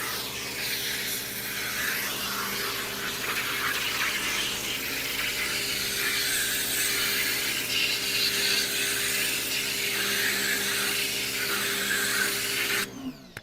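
Certified 1800 PSI electric pressure washer running and spraying, a steady water hiss over the hum of its motor and pump; it cuts off suddenly near the end as the trigger is let go.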